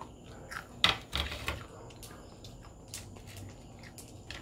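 A small condiment sachet being torn open and handled: a sharp snap about a second in, then a brief run of crinkling rustles. Faint scattered ticks follow.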